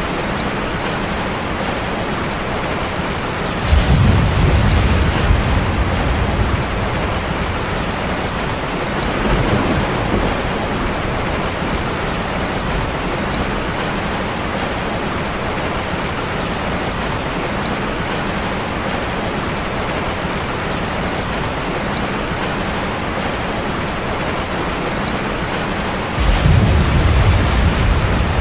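Steady heavy rain with thunder: a sudden low rumble of thunder about four seconds in, a weaker one around ten seconds, and another breaking out near the end.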